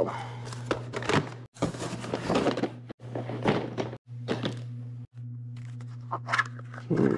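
Hard plastic storage bins and card deck boxes being pulled around and handled: repeated knocks, clacks and rattles, over a steady low hum.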